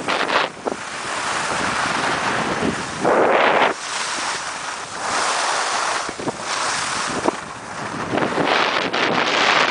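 Wind rushing over the microphone while skiing downhill, mixed with skis hissing and scraping over the snow, swelling loudest about three seconds in and again near the end.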